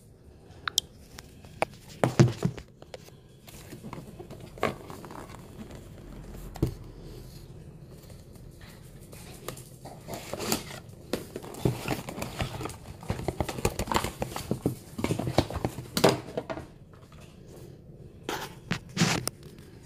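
A knife slitting the tape on a cardboard mailer box, with irregular scrapes, crinkling and knocks as the cardboard and packaging are handled.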